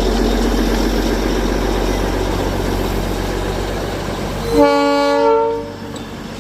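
Darjeeling toy train sounding its horn once, a single held blast of about a second and a half starting some four and a half seconds in, over a steady low rumble.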